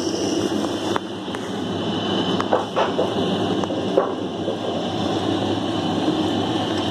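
Schiffer multi-disc sawmill machine running without load, its 30 hp motor, roller-chain drives and feed rollers giving a steady mechanical hum. A few light clicks and knocks come about a second in and between about two and a half and four seconds in. It runs smoothly, with the main-shaft bearings newly replaced.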